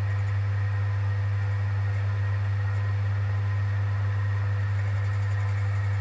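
Myford Super 7 lathe running steadily with its faceplate spinning: an even, steady low hum with a fainter higher whine above it.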